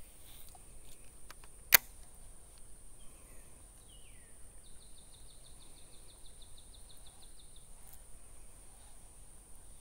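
A bird singing a rapid, even trill of about seven notes a second for some three seconds in the middle, after a short falling call. A single sharp click sounds just under two seconds in, over quiet creekside background.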